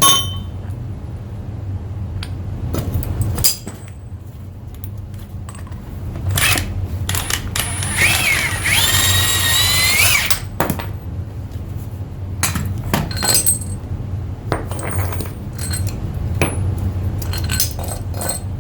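Metal tools and parts being handled, clinking and clanking at irregular times over a steady low hum. About eight seconds in there is a loud, high, wavering squeal lasting about two seconds.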